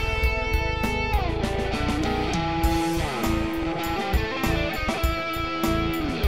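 Background music: a guitar-led instrumental with a steady drum beat and some sliding notes.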